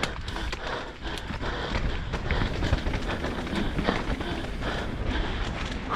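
Enduro motorcycle ridden over rough rocky trail: the engine running, with frequent short knocks and clatters from the bike bouncing over rocks.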